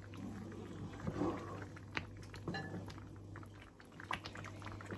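Wooden spoon stirring and scraping a pan of thick, simmering ube halaya (mashed purple yam), with soft sticky plops and a few sharp clicks. The mixture is thickening toward done.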